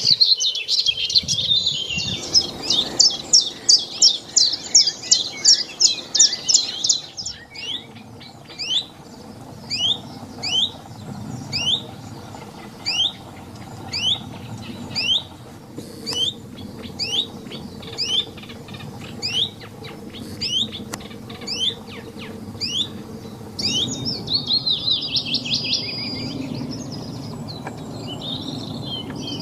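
A songbird calling loudly in repeated sharp, sweeping notes. A fast run of about three notes a second lasts several seconds, then the notes come slower and evenly spaced, and another quick run follows near the end.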